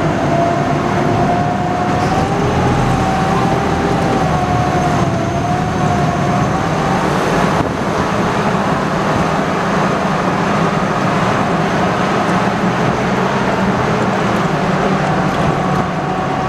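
Amphibious Army Duck tour vehicle's engine running steadily under load as it drives out of the water and up a dirt trail. A thin whine rides over the engine, wavering in pitch for the first several seconds and returning near the end.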